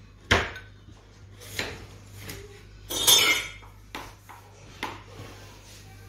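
A spoon and dishes clinking and knocking: about seven separate knocks, the loudest about a third of a second in and a longer ringing clatter about three seconds in.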